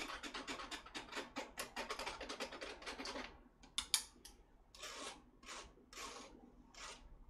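Chopsticks scraping and tapping beaten egg through a fine-mesh metal strainer, several quick strokes a second, to strain out the chalazae. About halfway through it slows to a sharp tap and then a few slower, spaced scraping strokes.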